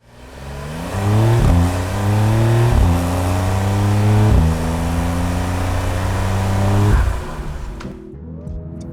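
Car engine accelerating hard through the gears. Its pitch drops at each of four gear changes, and it eases off near the end.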